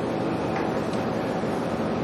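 Steady room noise: an even hiss with no speech and no distinct events.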